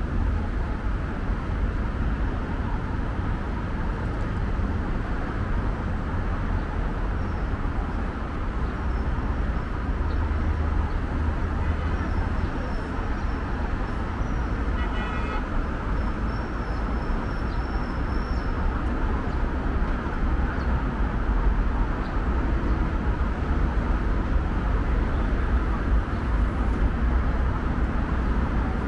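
City street traffic: a steady rumble of cars and buses passing. A few faint high chirps or squeaks come about halfway through.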